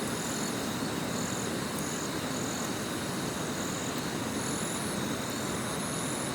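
A river rushing steadily, with an insect chirping in short, high-pitched pulses about twice a second over it.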